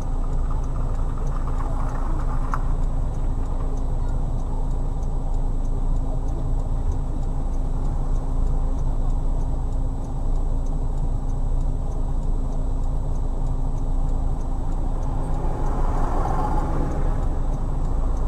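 Steady engine and road noise of a moving car heard from inside, with faint ticking at an even pace. A rush of noise swells and fades near the end.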